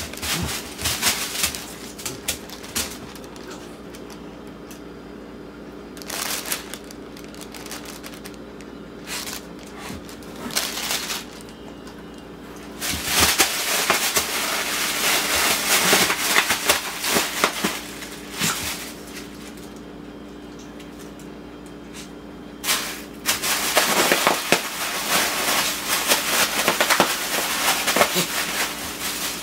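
Plastic air-pillow packing (bubble wrap) crinkling, crackling and popping as a dog bites and tugs at it, with scattered clicks at first and two long dense bouts of crackling about halfway through and near the end.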